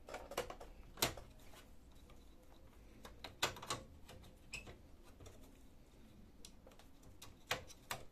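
Scattered sharp plastic clicks and knocks from the black plastic part and its latch hooks at the back of an HP LaserJet 2400-series printer, being pushed and pulled loose by hand. A sharp click comes about a second in, a cluster around three and a half seconds, and more near the end.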